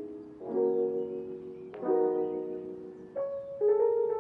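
Background music: soft piano chords, a new one struck about every one and a half seconds, each ringing out and fading.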